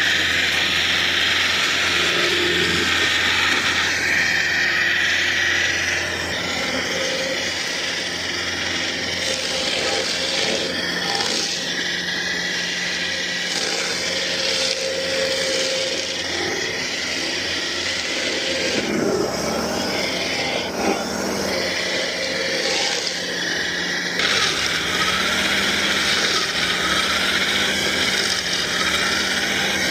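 Stump grinder running under load, its engine holding a steady hum while the cutter wheel chews through a wood stump. The cutting noise eases about a fifth of the way in and comes back strongly late on, as the wheel bites harder into the wood.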